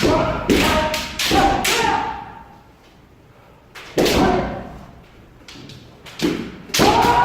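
Kendo sparring: sharp cracks of bamboo shinai striking armour and feet stamping on a wooden floor, several in quick succession, then a lull of about a second before more strikes. The impacts echo in a large hall, and a sparring shout (kiai) starts near the end.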